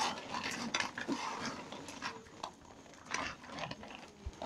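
A dog eating, with soft, irregular chewing clicks.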